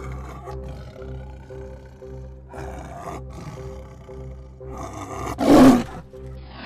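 A tiger growling and roaring over background music, with the loudest roar about five and a half seconds in.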